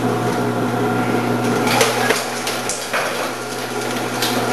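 Commercial vegetable cutting machine running with a steady motor hum while cucumbers are fed down its chute and sliced by the spinning 2 mm slicing disc. Several sharp knocks and clatters come from the produce and plunger striking the feed chute.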